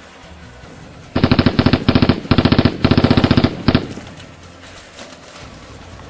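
Rapid automatic gunfire in four quick bursts, ending with a single last shot, lasting about two and a half seconds from a second in. It is an added machine-gun sound effect.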